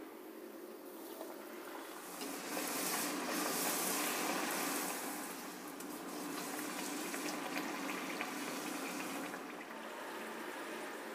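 A poori deep-frying in hot oil in an iron kadai: a steady crackling sizzle that grows louder about two seconds in, as the poori goes into the oil, and keeps up while it fries.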